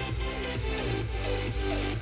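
Background electronic music with a steady bass line.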